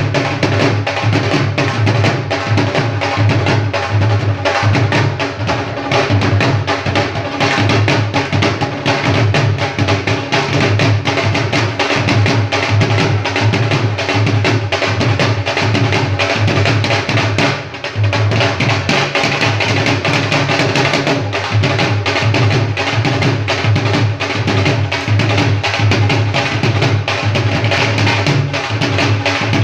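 Live drumming on dhol barrel drums: a fast, dense, steady beat.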